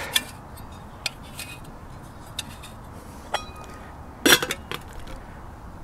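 Metal clinks and taps from a stainless steel Ikea hobo stove and its steel pot and lid being handled and set down, with a louder clank about four seconds in. One tap a little past the middle leaves a brief ringing tone.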